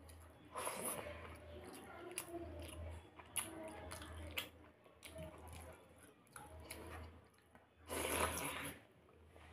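Eating by hand with chewing and small wet clicks of fingers and food. Near the end comes the loudest sound, a wet squelch and drip as a handful of curd-soaked pakhala rice is squeezed out over a steel bowl, all over a steady low hum.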